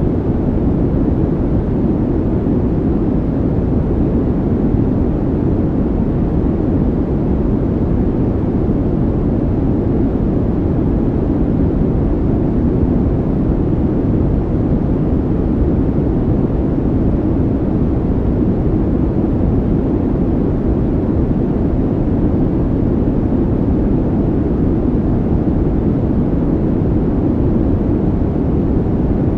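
Steady, deep rushing noise with no rhythm or breaks, an added calming background sound.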